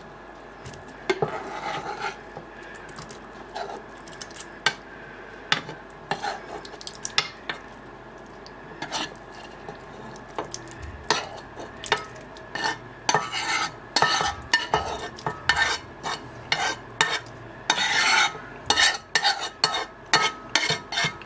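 A spoon scraping cooked chicken livers out of a nonstick frying pan into a glass blender jug: repeated scrapes and clicks of the spoon on the pan and against the glass, sparse at first and coming thick and fast in the second half.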